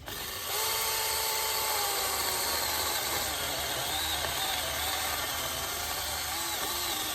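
Battery-powered electric chainsaw running and cutting into a small tree trunk. Its motor whine rises about half a second in, then drops a little in pitch and wavers as the chain bites into the wood.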